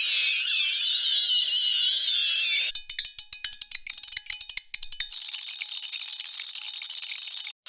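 Extreme-temperature reaction recordings, hot or frozen material meeting water, ice or metal, cut one after another: first a dense, high squealing and chirping hiss, then a couple of seconds of rapid sharp clicks and crackles, then a high fizzing hiss that cuts off just before the end.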